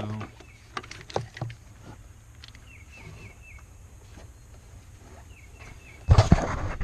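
Light clicks and knocks of a metal oil catch can being handled and bumped against engine-bay parts while it is test-fitted, with faint bird chirps between. About six seconds in, a loud rustling and handling noise starts.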